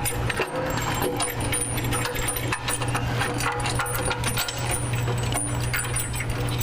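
Steel bolts and washers clinking and rattling as they are handled and started by hand into the bumper brackets. A steady low hum runs underneath.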